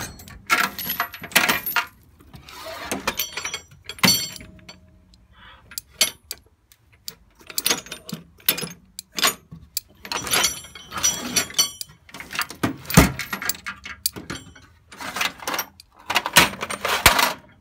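Metal tools and parts clanking and clinking as they are handled and set down: irregular knocks and clatters, some ringing briefly.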